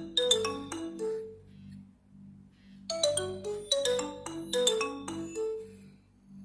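Nokia Asha 302 ringtone: a short, quick melody of ringing notes, heard once, then repeated after a gap of about a second and a half. The repeat dies away before the end, and a faint low hum sits under it.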